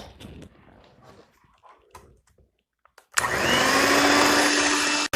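A few faint clicks and handling sounds, then about three seconds in an electric whisk switches on and runs steadily with a constant hum, beating cocoa powder into a batter of eggs, sugar and butter.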